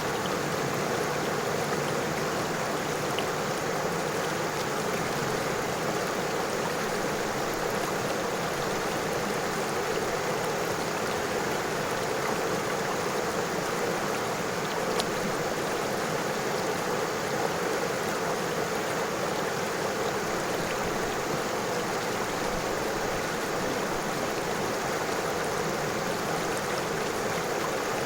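River water flowing over stones: a steady, even rushing.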